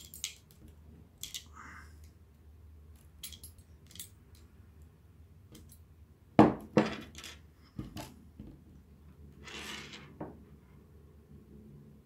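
Small metal clicks and clinks of crimping pliers and wire leader fittings being handled, with a few heavier knocks a little past halfway as the pliers meet the wooden tabletop, and a short rustle near the end.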